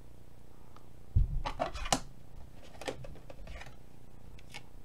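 Hands handling a trading card and a hard plastic card holder: a dull thump about a second in, then a few light clicks and scrapes of card and plastic.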